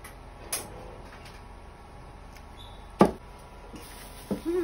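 A single sharp knock about three seconds in, the sound of a kitchen knife being put down on a ceramic plate, with a faint click about half a second in, over a low steady hum. A short hummed voice sound near the end.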